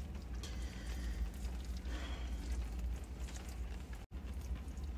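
Faint eating sounds, a plastic fork working in a takeout burrito bowl and chewing, over a steady low hum.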